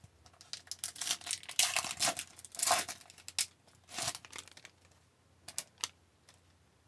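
Foil wrapper of an Upper Deck hockey card pack torn open and crinkled as the cards are pulled out, for about the first four seconds. Two short clicks follow a little later.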